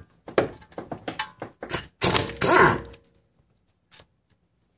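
Pneumatic impact wrench hammering in a short burst of under a second, about two seconds in, breaking loose the tight brake line fitting on a rear brake caliper. Before it come a few clicks and knocks as the socket is set on the fitting.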